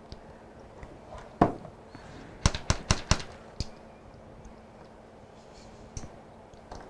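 Sharp plastic clicks and taps from a measuring spoon of Dijon mustard being emptied over a plastic food container: one knock, then a quick run of about five taps a second later, and a couple of single clicks after.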